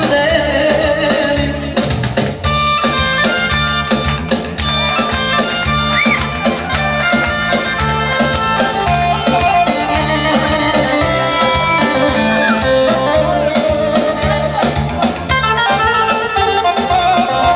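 Live dance music from a band with an electronic keyboard: a steady, repeating beat under a busy, fast-running melody.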